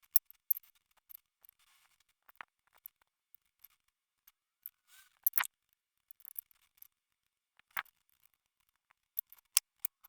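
Irregular sharp clicks and faint scrapes of small hard objects being handled, the loudest about five and a half seconds in.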